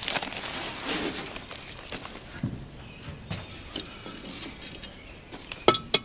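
Dry play sand poured from a glass mason jar into the gap between two nested terracotta pots: a hissing pour in the first second and a half, then scattered light scrapes and ticks. A couple of sharp clinks near the end, glass jar on the clay pot rim.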